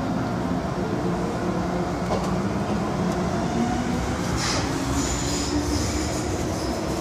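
Inside an MTR M-Train (Metro-Cammell electric multiple unit) pulling out of a station into the tunnel: steady running noise, with a motor whine that rises slowly in pitch as the train gathers speed. A short hiss comes about four and a half seconds in.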